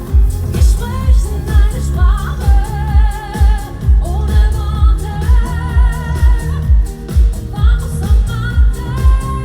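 Live pop song played loud: a steady four-on-the-floor kick drum about twice a second under a wavering sung melody line.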